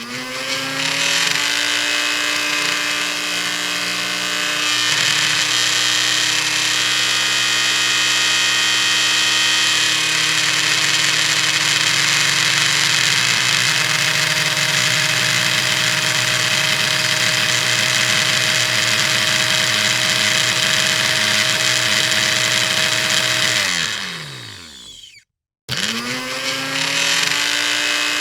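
Electric blender motor switching on and spinning up with a rising whine, then running steadily with its tone shifting a few times. Near the end it is switched off and winds down with a falling pitch, goes silent for a moment, then starts again and spins back up.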